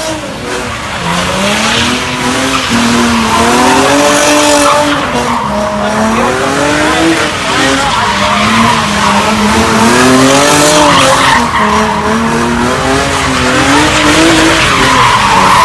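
Car engine revving up and down again and again over loud, continuous tire squeal from a burnout or drift.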